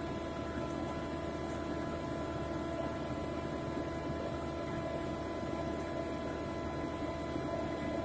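Engine of a surface boring rig running steadily at a constant speed, an even drone with a fixed pitch.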